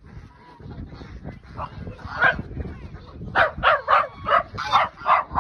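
Small dog barking at a sheep: one bark about two seconds in, then rapid, repeated barks at about four a second.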